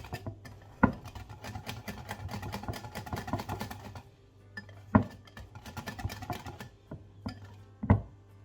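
A utensil stirring thick flour-and-water batter in a bowl, clicking and scraping quickly against the bowl for about four seconds, then more sparsely. Three sharper knocks on the bowl come about a second in, around the middle, and near the end.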